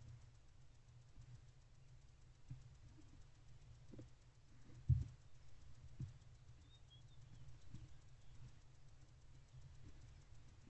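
Barn owlets shuffling and feeding on the floor of a wooden nest box: faint scuffs and soft knocks, the loudest about five seconds in, over a low steady hum.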